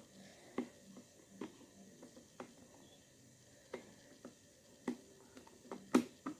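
Irregular sharp clicks and taps from a Vaultz lock box's combination lock being handled while it is set to a new code, with the loudest click near the end.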